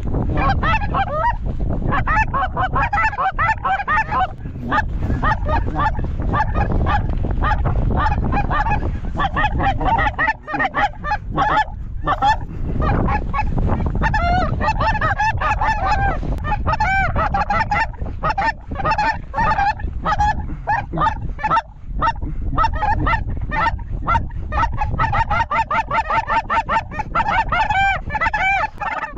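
A flock of geese calling overhead: a dense, continuous chorus of short, overlapping high honks, with wind rumbling low on the microphone.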